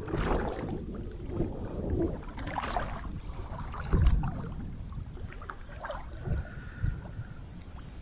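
Water sloshing and splashing irregularly as a person wades through a lake, with a few louder sloshes.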